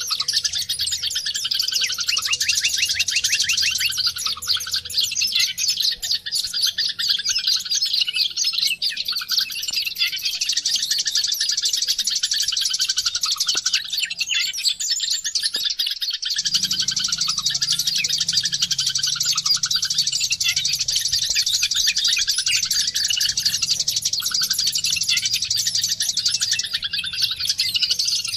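White-eye (pleci, Zosterops) singing a fast, unbroken stream of high twittering song. A faint low hum runs underneath and drops out for a moment past the middle.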